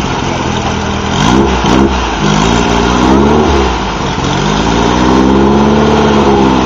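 Class 11 stock Volkswagen Beetle race car's air-cooled flat-four engine revving: two quick blips about a second in, then two longer climbs in revs, the first dropping off about four seconds in.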